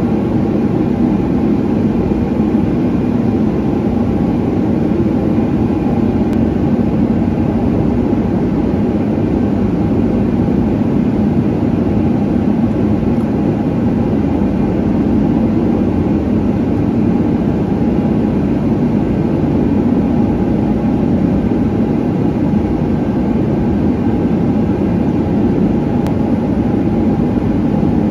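A steady, loud mechanical drone, like a large fan or blower running, with a faint hum in it and no change from start to end.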